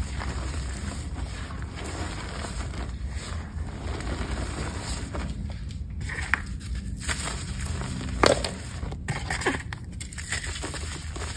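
Hands crushing soft molded blocks of Bon Ami and cornstarch into a bed of loose powder: continuous soft crunching and crumbling, with a few sharper crunches, the loudest about eight seconds in.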